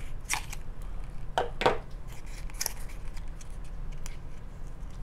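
A small paperboard box being cut and pried open by hand, giving a few sharp, crisp crackles and scrapes of cardboard at irregular intervals.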